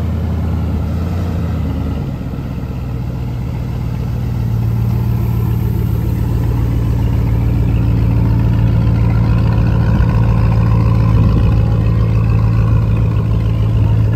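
Engine running at a steady idle, having started just before. Its pitch steps up slightly about two seconds in and it gradually gets louder.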